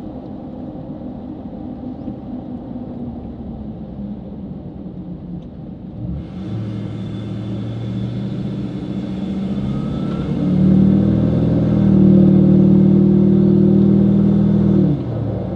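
Duramax turbo-diesel V8 exhaust through a 7-inch bed stack, heard from inside the cab. It runs low and steady for about six seconds, then the truck pulls away and the exhaust note gets louder, steps up again about ten seconds in, and drops off sharply near the end.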